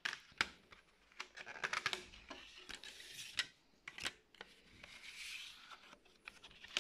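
A clear plastic CD jewel case being handled by hand: a series of sharp plastic clicks and rattles, with scratchy rustling from fingers on the case and its booklet between them.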